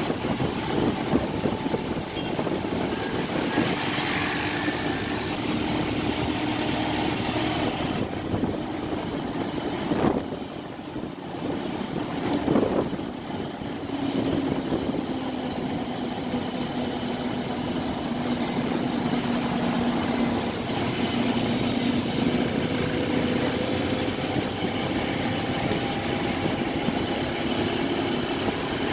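Busy city street traffic heard from a moving vehicle: a steady drone of engines and road noise, with brief swells as vehicles pass close around ten and twelve seconds in.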